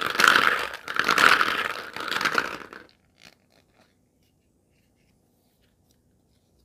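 Clear plastic capsule eggs rustling and clattering against each other as hands stir them in a bowl, stopping about three seconds in. A few faint clicks follow as one capsule is opened, then near silence.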